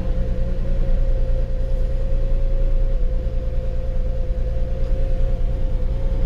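The Volkswagen Passat's 3.6-litre VR6 engine idling steadily, with a constant mid-pitched whine over the low engine note, running smoothly now that its fuel pressure is back up after the fuel pump was replaced.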